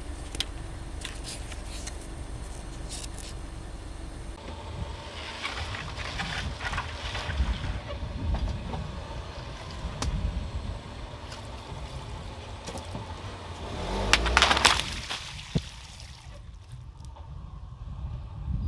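Car tyre rolling onto a row of long water-filled balloons, which burst with a loud gush and splash of water about three-quarters of the way through.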